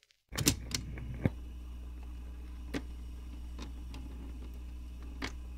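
Record stylus in a vinyl LP's run-out groove: a low steady hum sets in suddenly, with a cluster of loud clicks over the first second, then a soft click every second or so as the groove turns.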